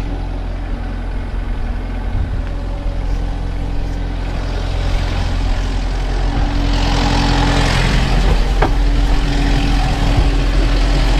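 Tractor engine running steadily with a round baler working behind it; about halfway through it grows louder, with an added hum and a hiss, and there is one sharp click near the end.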